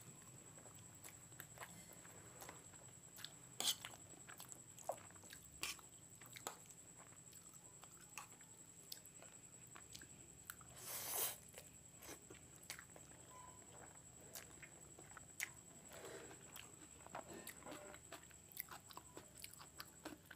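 Close-miked, wet mouth sounds of someone eating Maggi instant noodles: scattered chewing clicks, with one long slurp of noodles about eleven seconds in. A thin, steady high whine runs underneath.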